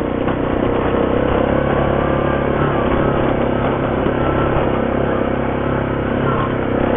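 ATV engine running at a steady speed while under way.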